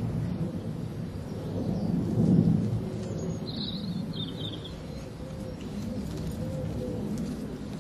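Wind buffeting the microphone: a low, uneven rumble that swells about two seconds in, with a few faint high chirps around the middle.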